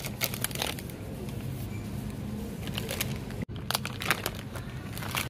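Plastic grocery packaging crinkling, with light knocks as items are handled in a shopping cart, in two clusters near the start and a little past the middle, over a steady low hum.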